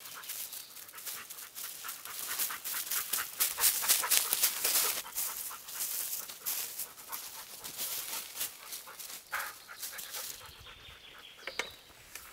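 Footsteps of a man and a dog rustling and crunching through dry fallen beech leaves, loudest a few seconds in and quieter after about ten seconds. The dog pants.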